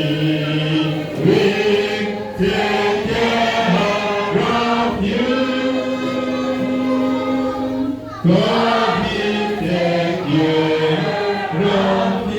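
A group of voices singing a hymn together in chorus, holding long notes, with a brief break about eight seconds in before the singing picks up again.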